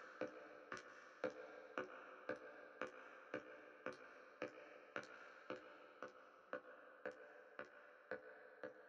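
Sharp, evenly spaced taps, about two a second, over a faint sustained tone, the whole slowly fading.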